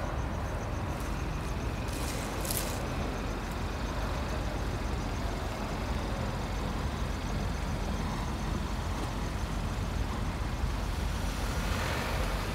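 Steady low rumble of urban street traffic, with a brief hiss about two seconds in.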